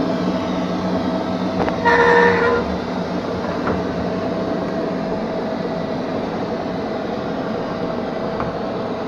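Neato XV-21 robot vacuum running steadily with a close-up motor and brush hum. About two seconds in, a short pitched beep sounds once, under a second long.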